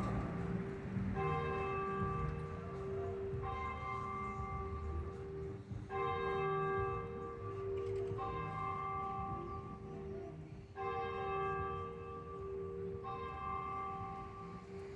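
Church bell tolling, struck about six times at an even pace of roughly one stroke every two seconds, its low hum note ringing on between strokes.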